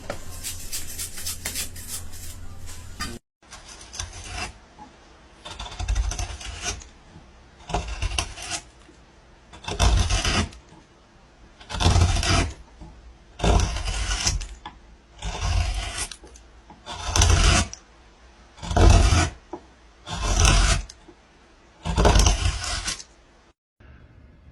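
About three seconds of dense crackling, then a series of about eleven rasping, scraping strokes at an even pace, roughly one every second and a half.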